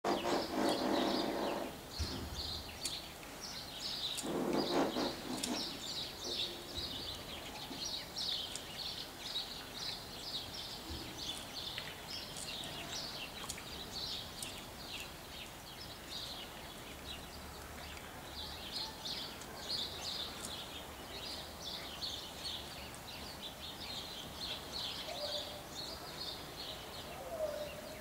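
A flock of house sparrows and other small birds chirping constantly, many short high chirps overlapping. Twice in the first five seconds a louder, lower, drawn-out sound rises above them.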